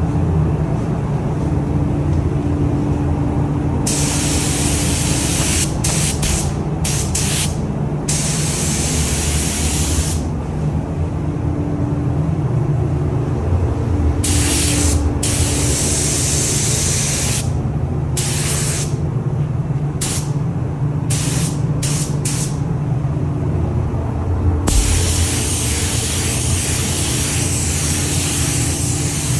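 Paint spray gun hissing in on-off passes, some long and some only brief bursts, over a steady low machinery hum.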